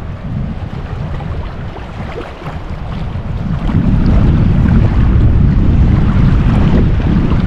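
Wind buffeting the microphone: a loud, low, uneven rumble that grows louder about four seconds in.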